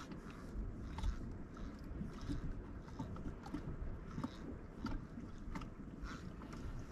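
Water lapping and sloshing against a kayak's hull, with scattered small clicks and knocks.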